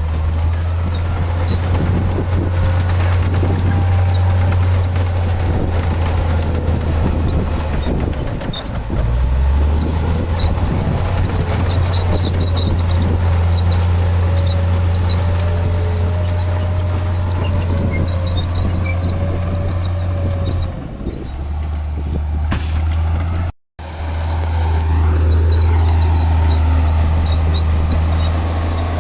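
Heavy diesel engine of earthmoving machinery running under steady load with a deep, continuous drone and faint wavering whines above it. The sound cuts out completely for an instant about two-thirds of the way through, then resumes.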